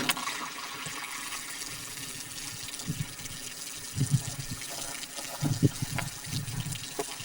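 Water pouring and trickling out of bullet holes in water-filled plastic jugs just after a .38 Special round has passed through them, with the tail of the gunshot fading at the very start and a few dull low knocks.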